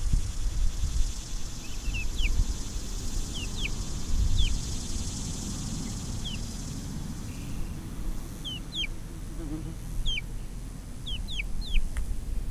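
Chicks peeping: about a dozen short, high, falling peeps, scattered singly and in quick pairs.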